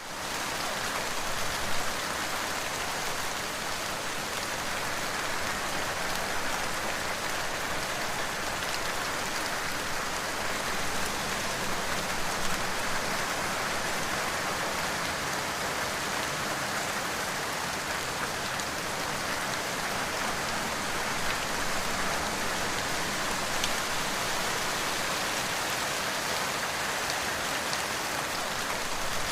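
Steady rain falling on a surface, an even dense patter with occasional louder individual drops.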